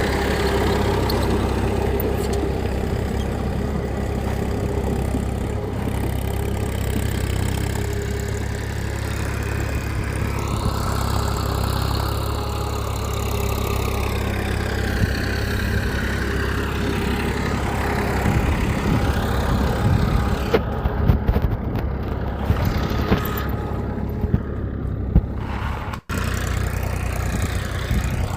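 A small engine running steadily, with scattered clicks and rattles in the second half and a brief break about 26 seconds in.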